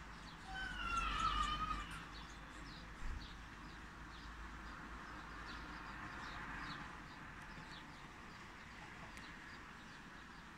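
Birds calling outdoors: one long, falling, wavering call from about half a second to two seconds in, then many short high chirps repeating through the rest, over a faint low rumble.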